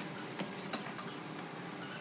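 Faint workshop background noise with a couple of light clicks about half a second in.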